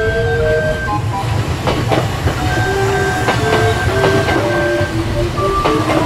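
Kintetsu electric commuter train passing close by: a steady low rumble with its wheels clicking over rail joints several times. Background music with a simple melody plays over it.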